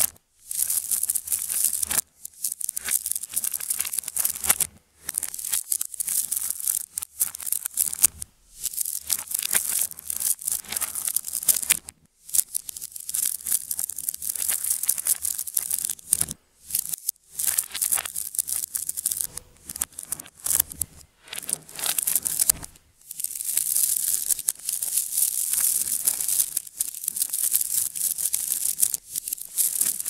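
Hundreds of 10 mm neodymium magnet balls clicking and rattling as they are handled and snap against one another in a continuous dense clatter, with a few short pauses.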